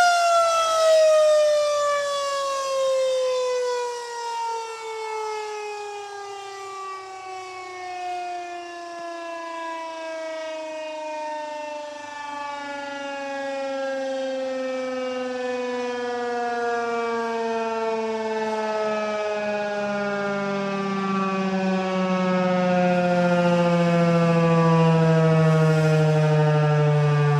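Federal Signal 2001-130 electromechanical tornado siren ending its steady alert tone and winding down, its pitch falling slowly and continuously as the rotor coasts to a stop. The loudness dips in the middle of the wind-down and swells again later.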